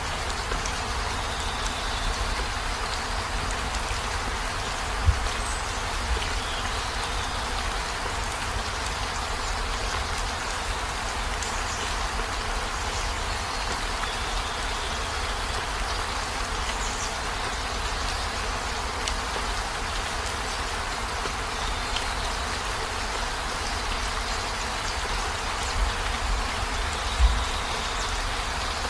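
Heavy rain falling steadily on a van. A few low thumps sound over it, the sharpest about five seconds in and another near the end.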